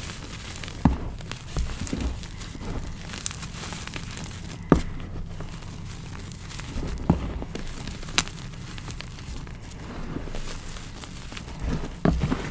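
Hands rubbing and crushing a soft, buttery reformed gym chalk block topped with charcoal powder, giving a steady gritty crumbling and scraping. Sharp snaps of harder bits cracking come about five times.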